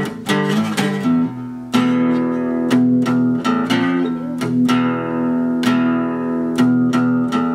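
Acoustic guitar being played: a quick run of picked notes and strums, several a second, over a low note that keeps ringing through most of it.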